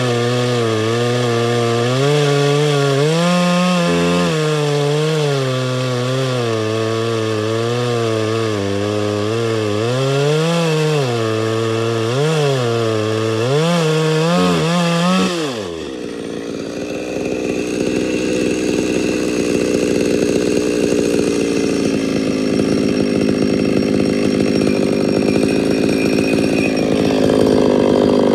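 Homelite 240 two-stroke chainsaw cutting through a log, its engine pitch wavering up and down under load. About fifteen seconds in the revs drop quickly and the saw runs on at a low idle.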